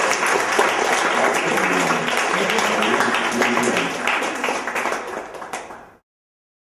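Audience applauding, dense clapping with some voices mixed in, cutting off suddenly about six seconds in.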